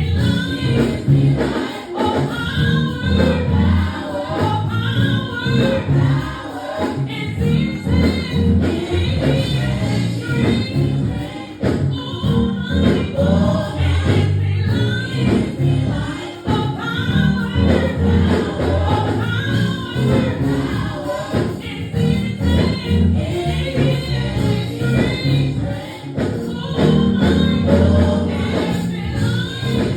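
A gospel choir singing live with a band, the voices bending and wavering in pitch over a steady bass and regular drum beats.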